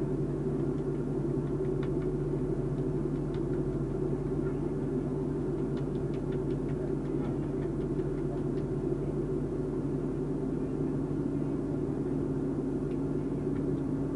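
Steady low hum of a running vehicle engine, with a few faint ticks and clicks over it.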